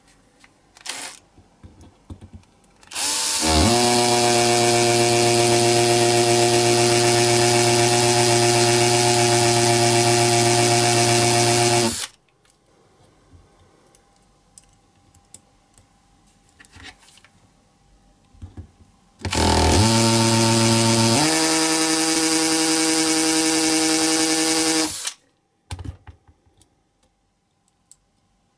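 Small electric drill running in two long stretches, the first about nine seconds and the second about six. Each starts with a short rising whine as the motor spins up and then holds a steady pitch; the second changes pitch partway through. Light handling clicks fall between them.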